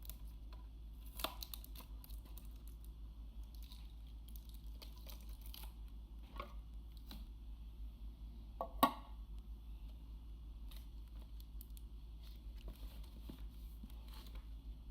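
Packaging being handled and opened by hand: light crinkling, tearing and small clicks, with a sharper knock about a second in and a louder one near nine seconds. A steady low hum sits underneath.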